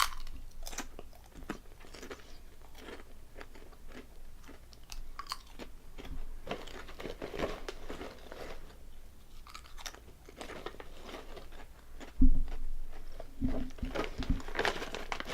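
Potato chips (Calbee Honey Butter Chips) being crunched and chewed close to the microphone, with many short sharp crunches. A louder low sound comes about twelve seconds in.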